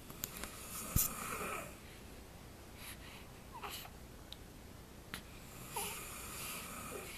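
Snoring: two long, wheezy breaths about four to five seconds apart, with faint whistly notes in the nose or throat. There is a sharp click about a second in.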